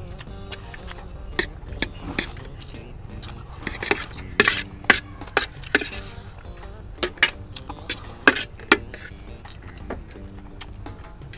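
Eating utensils clinking against bowls in a scattered run of sharp clinks through the middle, as food is eaten fast. Steady background music plays throughout.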